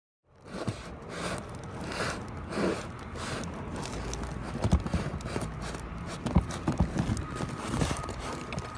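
Metal parts of a taken-apart compressor being handled: scattered knocks and clunks, several sharp ones in the second half, over a low rumble.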